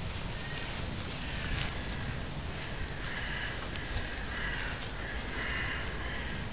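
Short bird calls repeating about once or twice a second over a steady rushing outdoor noise with a low rumble.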